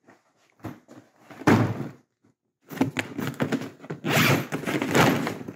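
A large fabric tote bag thumps down onto a table. Then its long top zipper is pulled open over about three seconds, with the bag's woven material rustling.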